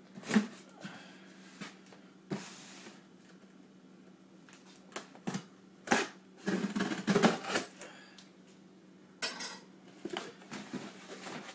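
A kitchen knife slitting the packing tape on a cardboard shipping box, with sharp taps, scrapes and rustles of the cardboard being handled. The sounds come in scattered short bursts with pauses between them.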